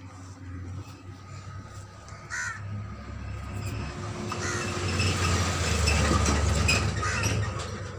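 Crows cawing: three short caws a couple of seconds apart, over a low rumble and hiss that swell louder toward the middle.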